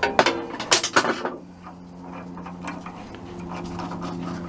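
Metal hand tools clanking against a VW Type 1 alternator pulley as its nut is loosened with a wrench: a few sharp clanks in the first second, then lighter clicks and rubbing as the pulley is handled. The pulley is being taken apart to add a shim and slacken a belt that is too tight.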